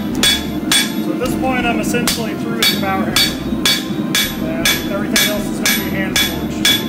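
Hand hammer forging a red-hot steel blade on an anvil: a steady run of sharp, ringing blows, about two a second.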